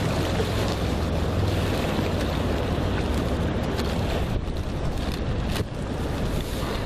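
Wind buffeting the microphone in a steady low rumble, with a few brief crackles of plastic bags being handled over a bucket.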